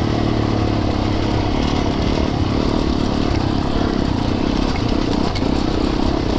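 Yamaha YZ450FX dirt bike's single-cylinder four-stroke engine running steadily as the bike is ridden along a trail, with small rises and falls in its note.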